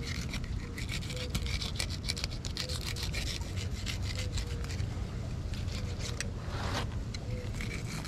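Fillet knife sawing through a cero mackerel's skin and flesh along its back, a run of scraping strokes with many small ticks, and one brief louder rasp near the end.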